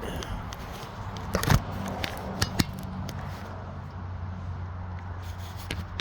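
A few sharp metallic clinks and knocks from metal tools or parts being handled, the loudest about a second and a half in, over a steady low hum.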